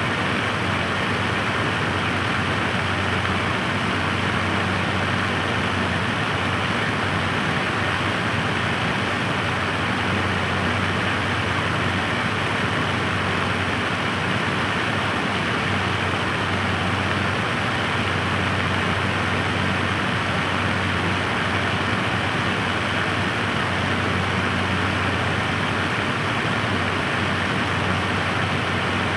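Electric floor fan running steadily at one speed: an even rush of air with a low motor hum underneath.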